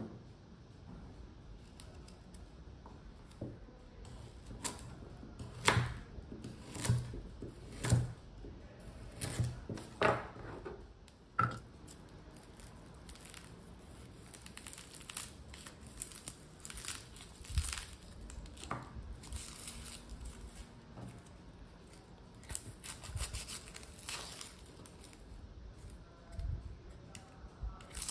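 A kitchen knife chopping through raw carrot onto a cutting board, about seven sharp chops in the first half. After that, the dry papery skin of a red onion is torn and peeled away with the knife, a light tearing and crinkling.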